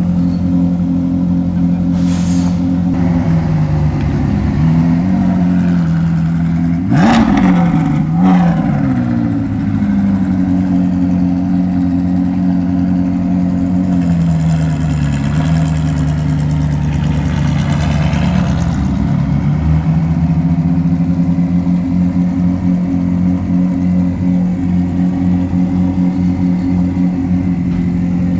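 Ferrari Challenge race car's flat-plane-crank V8 idling steadily, blipped several times in quick succession about four to nine seconds in, the sharpest rev about seven seconds in. Its pitch sags and climbs back again around fourteen to nineteen seconds in.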